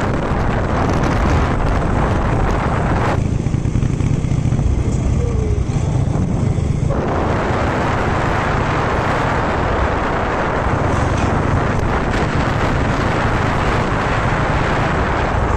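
Wind buffeting the microphone on a moving motorcycle, with engine and road noise underneath. The hiss thins out for a few seconds about three seconds in, then comes back.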